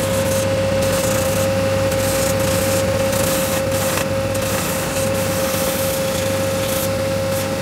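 Bench belt sander running with a steady whine, a wooden cutout pressed against the moving abrasive belt over its end roller, so the rough sanding noise swells and eases as the wood is pushed on and eased off.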